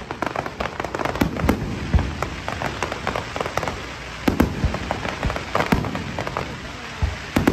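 Fireworks display: dense crackling throughout, with louder shell bursts booming about two seconds in, at four and a half seconds, and near the end.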